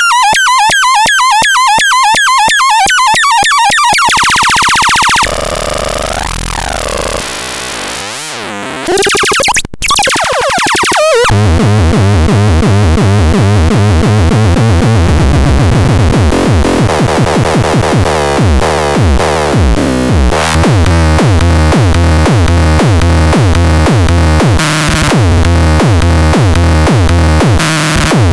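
Grove Machine C 202 electronic sound machine making synthesizer noises. It opens with fast wobbling tones over rapid ticking, goes quieter with gliding tones, gives a short sharp burst of noise near the middle, then settles into a loud, low, buzzing tone that pulses rapidly and steps in pitch.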